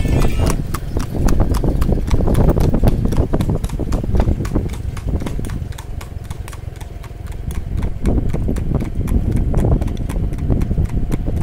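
Clip-clop of a Marwari horse's hooves on an asphalt road as it pulls a two-wheeled tanga cart at a fast, even gait, over a low rumble. The hoofbeats dip slightly about six seconds in, then come back up.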